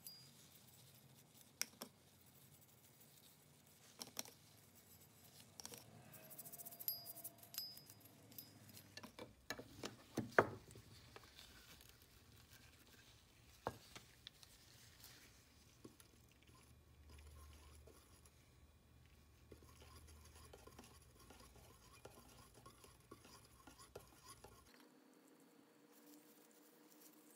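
Faint, scattered clicks and taps of small metal plane parts and hand tools being handled on a newspaper-covered workbench, busiest in the first half and loudest about ten seconds in.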